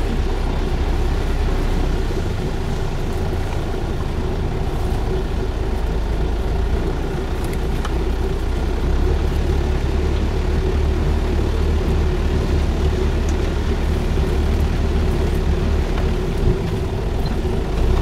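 Small vineyard tractor's engine running steadily as it drives along between the vine rows, heard close up from on board.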